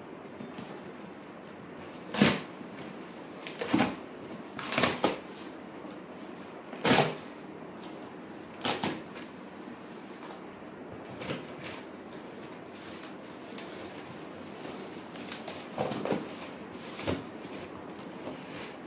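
Cardboard box being cut open with scissors and torn apart by hand: a series of short, sharp rips and crunches every second or two, fewer and fainter in the second half.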